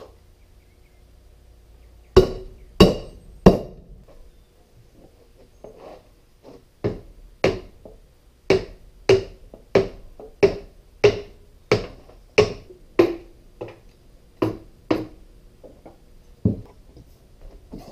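Hammer blows on a hydraulic lift cylinder, driving out its frozen piston. Three strikes come about two seconds in, then a steady run of blows at a little under two a second. Each blow gives a short metallic ring.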